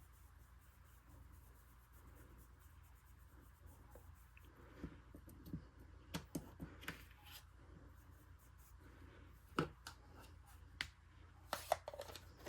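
Faint rubbing as ink is brushed lightly onto cardstock, with a few soft taps and ticks scattered through the second half.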